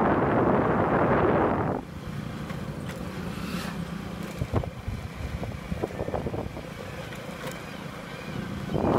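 Wind rushing over the microphone of a moving vehicle: a loud gust for about the first two seconds and again near the end. Between the gusts a steady low vehicle hum continues, with a few light knocks.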